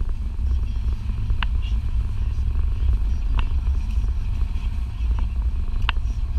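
Car driving along a road, heard from inside the cabin: a steady low road-and-engine rumble, with three light ticks about two seconds apart.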